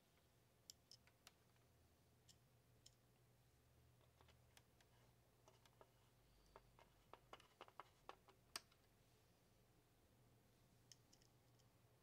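Near silence with faint, scattered clicks and taps of small plastic and metal space-heater parts being handled, bunched together about two-thirds of the way through. A faint low hum runs underneath.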